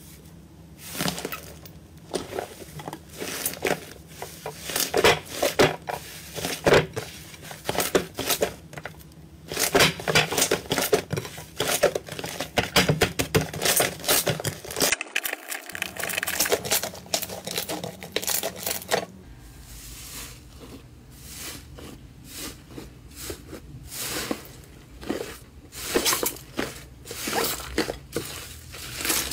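Hands squeezing, kneading and pulling apart thick slime, giving a dense run of sticky crackles, pops and squelches. The crackling is busiest over the first two-thirds and turns sparser and softer after a change of slime.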